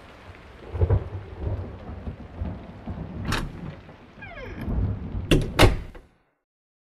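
Thunderstorm sound effect: rain with rolling low rumbles of thunder and three sharp cracks, with a falling tone in the middle. It cuts off suddenly about six seconds in.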